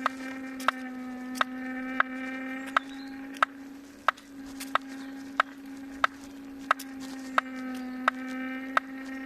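Kingsong S22 electric unicycle hub motor running with a steady hum and a sharp, regular knock about every 0.7 seconds: a knocking fault in the new motor.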